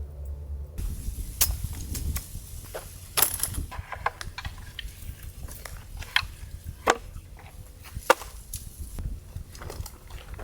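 Firewood being chopped: a string of irregular sharp knocks and cracks, a few of them much louder than the rest.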